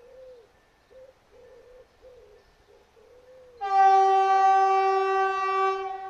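A train horn sounds about three and a half seconds in, one loud held tone for about two and a half seconds that then fades. Before it, faint bird calls.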